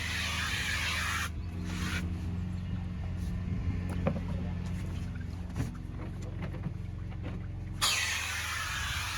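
Pressure washer's engine running steadily while the high-pressure lance sprays with a loud hiss; the spray stops about a second in and starts again near the end, leaving the engine running on its own in between.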